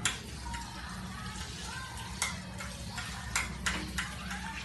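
Metal spoon clinking against a bowl and frying pan in a few sharp clicks as garlic is scooped into hot cooking oil, over a steady faint sizzle.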